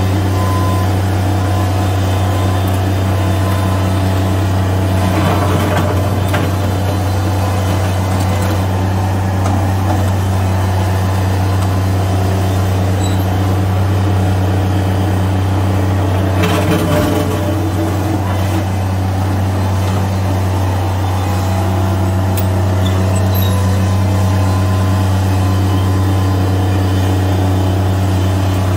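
Bobcat MT85 mini track loader's diesel engine running steadily, with gravel crunching and rattling under the bucket and tracks in two brief spells, about five seconds in and again about seventeen seconds in.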